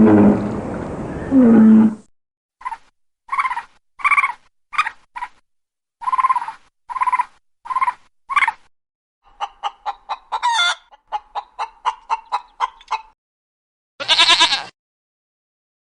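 A string of farm-animal calls played one after another. A low roar cuts off about two seconds in. About ten short calls follow, roughly one a second, then a quick run of fowl clucking with one squawk in the middle, and a single loud honking call near the end.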